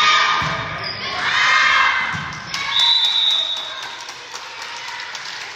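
Volleyball ball thumps, then players and spectators shouting and cheering as the point is won, and one steady whistle blast of under a second about three seconds in, the referee ending the rally.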